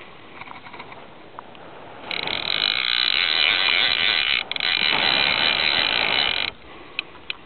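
Fishing reel's drag clicker buzzing loudly and steadily for about four seconds as line is pulled off it, with a brief stutter midway, the sign of a hooked fish running; a few sharp ticks follow near the end.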